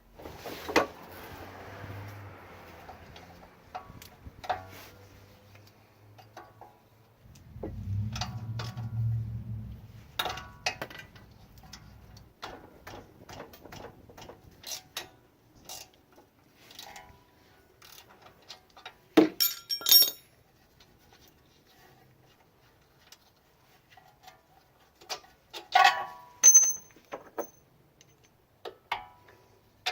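Hand tools and sockets clinking and clicking on steel suspension hardware as nuts and bolts come off, in scattered irregular strikes. A low hum runs for a couple of seconds about eight seconds in, and a short ringing ping follows one of the louder clinks near the end.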